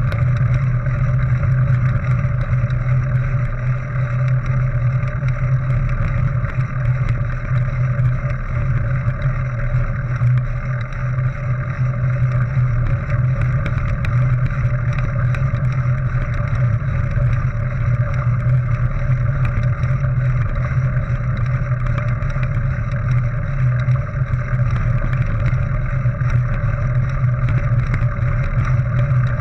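Steady, muffled rumble of a mountain bike's tyres rolling over a gravel track, mixed with wind on a GoPro HERO 3 in its waterproof housing, with small rattles and clicks from the bike and stones throughout.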